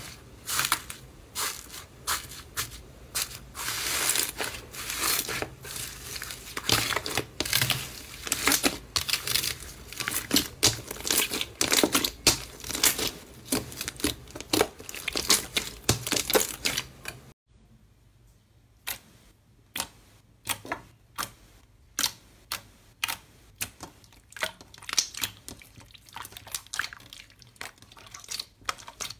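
Crunchy iceberg slime crackling and crunching as fingers press through and break its dried crust, a dense run of crisp crackles. After a sudden cut about 17 seconds in, a soft, glossy slime is squeezed between the hands, giving quieter, scattered clicks and pops.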